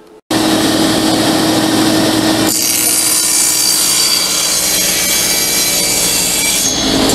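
Table saw running and crosscutting a solid-wood door panel pushed through on a crosscut sled. The saw is running with a steady hum, and the blade begins cutting the wood about two and a half seconds in. The cut ends near the end.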